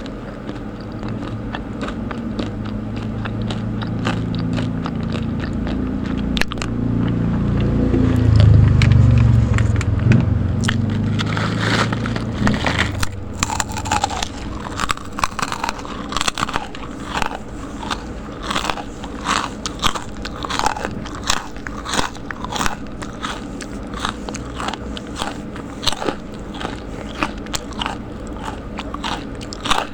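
A person chewing crispy snacks close to the microphone, with a run of sharp, regular crunches, about one and a half a second, through the second half. In the first half a low rumble swells to the loudest point and fades away.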